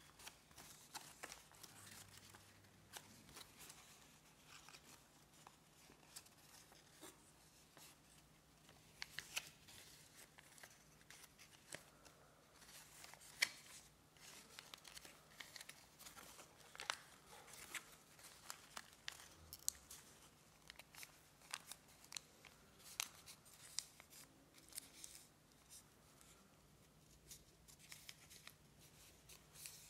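Faint rustling and crinkling of a square of origami paper being folded and creased by hand, with scattered sharp crackles, the loudest about halfway through.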